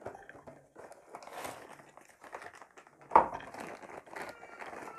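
Packaging being handled, with irregular rustling and one sharp knock about three seconds in.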